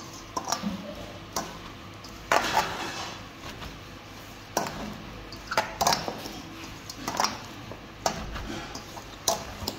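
Dishes and utensils clinking and knocking now and then, about ten scattered sharp taps, while food is mixed by hand in a bowl.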